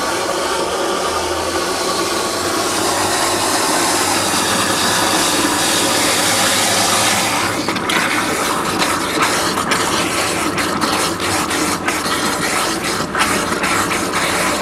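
Water rushing into the tank of a 1974 American Standard front-trap toilet as it fills, a steady hiss that turns uneven with short breaks about halfway through.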